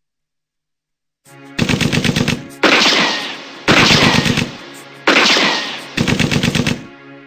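Gunfire sound effects over a low sustained musical drone, after about a second of silence. A rapid machine-gun burst is followed by three heavier blasts that each ring out for about a second, then another rapid machine-gun burst.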